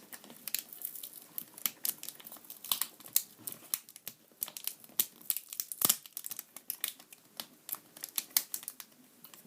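Adhesive tape being peeled off a laptop LCD's display cable connector, crackling with many small irregular snaps and ticks.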